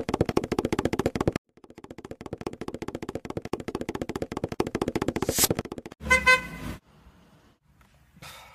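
A fast, even rattling pulse with a short break about a second and a half in, then a single short car horn honk about six seconds in.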